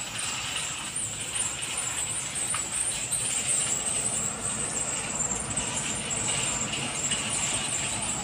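Outdoor background noise: a low rumble of road traffic under a steady high-pitched hiss.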